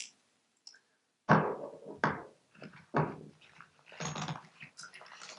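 Small gear being handled and set down: a sharp knock about a second in, two lighter knocks after it, then a brief rustle and faint clicks.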